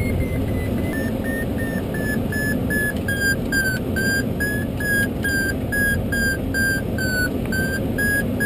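Glider variometer beeping in quick, even pulses, about three a second, after a steady tone that breaks into beeps about a second in: the audio vario signalling a climb in a thermal. Loud rush of air over the canopy underneath.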